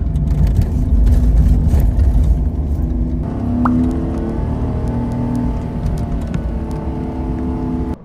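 Kei van's engine running with heavy road and tyre rumble, heard from inside the cabin while driving. About three seconds in, the rumble eases into a steadier engine drone whose pitch drifts up and down.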